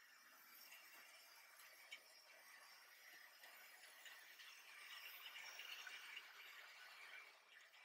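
Faint rattling of an OO-gauge model train running on its track, growing louder about five to six seconds in as the train comes closest.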